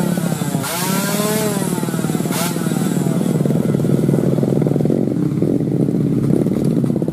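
Two-stroke motorcycle engines revving: the pitch swoops up and down several times in the first couple of seconds, then settles into a steadier, busier running sound.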